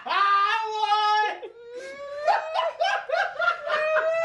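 A long drawn-out howl in two held notes: a short first note, then a higher, much longer second one that rises a little and holds.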